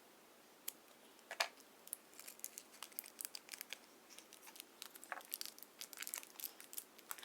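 Plastic booster pack wrapper crinkling and crackling in irregular small clicks as it is carefully cut open.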